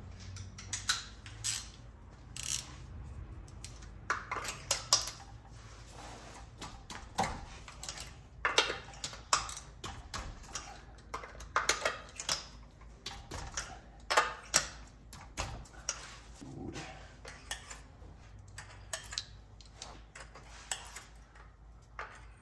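Metal hand tools clicking and clinking as a ratchet with a long socket extension works the spark plugs out of the engine. Irregular sharp clicks, some in quick runs.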